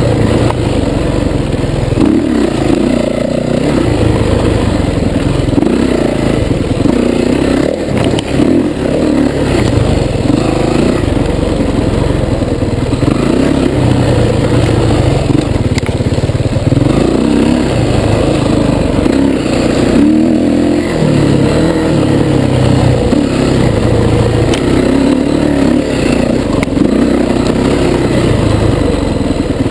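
Dirt bike engine revving up and down over and over as the throttle is opened and closed, the pitch climbing and dropping every second or two.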